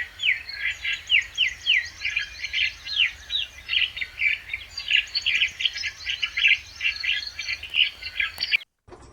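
Asian green bee-eaters calling: a rapid run of short, high chirps, many dropping in pitch, several a second. The calls cut off suddenly near the end.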